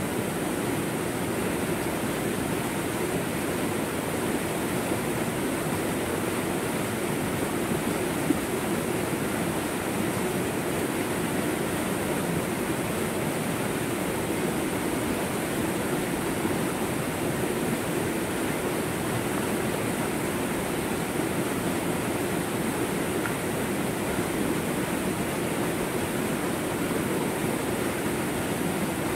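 Fast-flowing, muddy stream pouring down a small rocky cascade: a steady, unbroken rush of white water.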